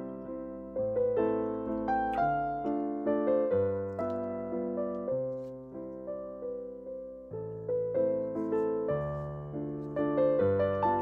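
Background piano music: a gentle melody of single struck notes over low chords, each note fading after it is played.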